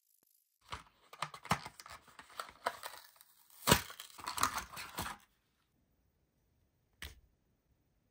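Packaging being torn and crinkled open for about four and a half seconds, in uneven crackling bursts, followed by a single short snap near the end.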